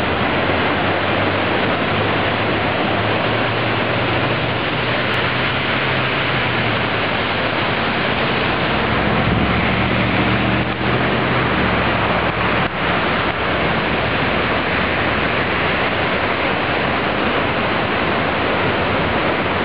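Floodwater rushing, a steady loud noise of fast-moving water.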